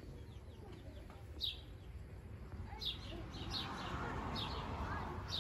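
Small birds chirping: short, high, downward-sliding chirps, one about a second and a half in and then several close together in the second half, over a steady low background rumble.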